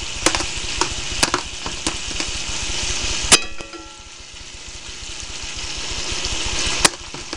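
Salmon pieces frying in oil in a pot over very low heat, a steady gentle sizzle, with a few sharp clicks against the pot. About a third of the way in comes one louder clank that rings briefly, after which the sizzle drops and slowly builds again.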